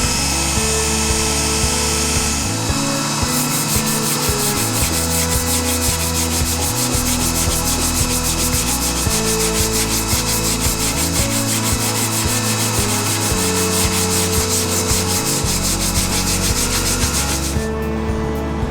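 Sanding on a car body panel in quick, even back-and-forth strokes, starting about three seconds in and stopping shortly before the end, over background music with a steady bass line.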